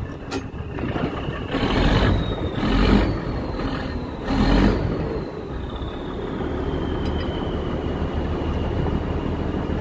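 Fishing trawler's diesel engine running steadily during net hauling, with three louder rushes of noise between about two and five seconds in. A faint high whine slowly falls in pitch through the middle.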